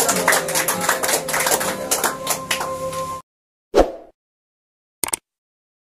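Congregational praise music with many sharp percussive hits, cutting off abruptly about three seconds in. Then a short whoosh and, about a second later, a brief click from a subscribe-button animation.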